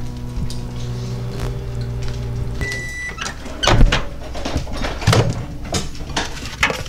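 Microwave oven running with a steady hum, which stops with a short high beep a little under halfway through. Then the door is opened with a loud clunk, and knocks and clatter follow as the plate is taken out.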